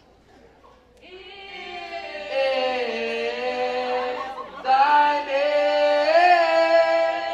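A small group of men's and women's voices singing a cappella together in long held notes, starting about a second in, with a short breath partway through and louder singing after it.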